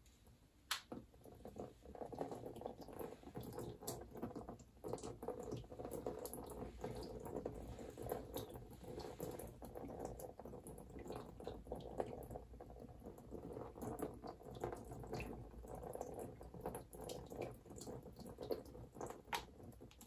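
Acrylic paint dripping through the holes of a metal barbecue grate onto a wet-painted canvas: a dense run of small, irregular wet drips that starts about a second in.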